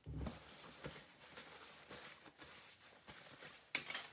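Kitchen handling sounds: a soft low thump at the start, a few faint light knocks, then a brief clatter of dishes and utensils near the end.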